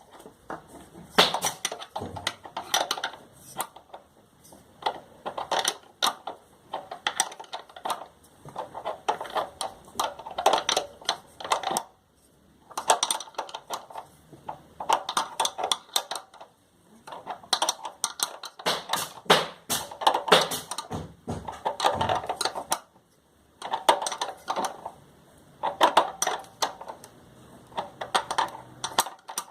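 Irregular clicking and clattering of metal parts and hand tools being handled in bursts of a few seconds, typical of a sewing machine being taken apart or reassembled.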